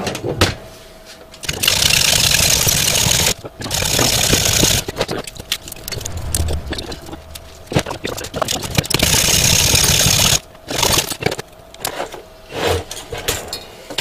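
Hacksaw cutting through the copper secondary winding of a microwave oven transformer, heard as three bursts of noisy sawing of a second or two each, with handling clicks between them. This is the cut that frees the high-voltage secondary coil so that it can be removed.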